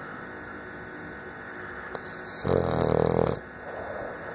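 Sleeping French bulldog snoring: one loud snore lasting just under a second, starting a little past halfway, with softer breathing noise before and after it.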